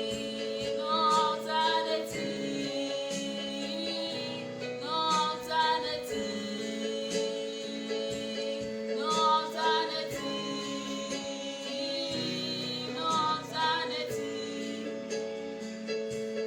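Gospel song: a woman sings short phrases with vibrato, four times, over steady held chords.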